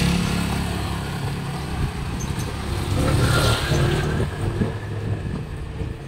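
Motor vehicles passing close by on a street: one engine fades away in the first second, and another comes up and passes about three seconds in.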